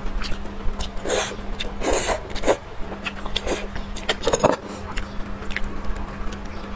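Close-miked eating sounds: chewing and wet smacking, and sticky, sauce-coated braised pork trotter being handled and pulled apart. They come as a few short separate bursts over a steady low hum.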